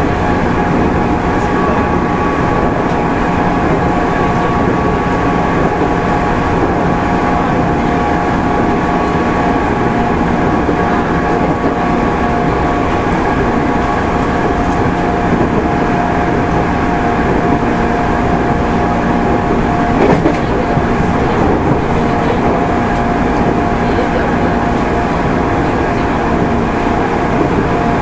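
JR 205-600 series electric multiple unit running at speed between stations, heard from inside the car: a steady rumble of wheels on rail, with several steady tones held above it. A single knock about 20 seconds in.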